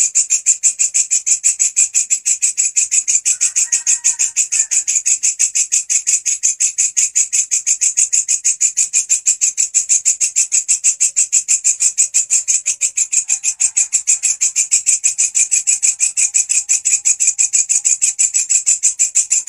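Walang kecek katydid calling without a break: a loud, even train of sharp, high-pitched chirps, about five or six a second.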